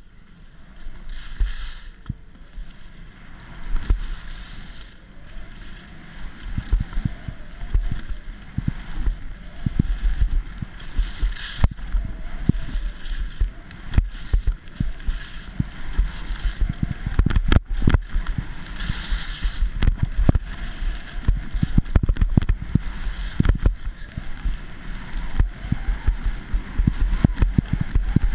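Wind buffeting an action camera's microphone during a ski run downhill, a heavy irregular rumble, with the hiss and scrape of skis on groomed snow rising and falling in uneven swells.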